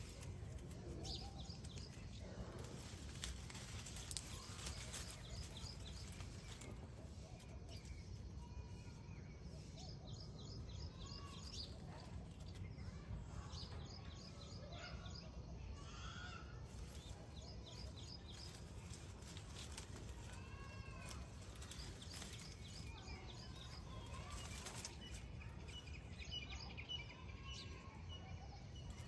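Weaverbirds chattering and calling, in many short runs of rapid ticking notes mixed with scattered rising-and-falling calls, over a steady low rumble.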